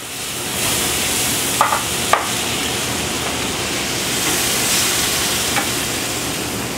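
A white wine, lemon and garlic-butter pan sauce sizzling steadily in a hot sauté pan as it is stirred, with two short clinks about a second and a half in.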